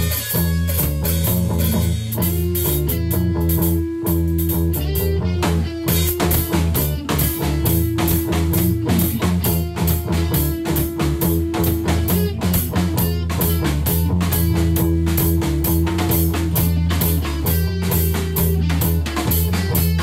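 Rock music with electric guitar, bass and a drum kit playing a steady beat, with long held notes sustained over it.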